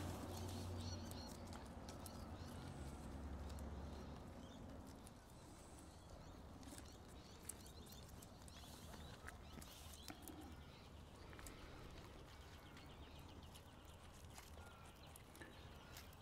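Quiet outdoor ambience with scattered faint clicks and rustles and a few faint bird chirps. A low hum fades out about five seconds in.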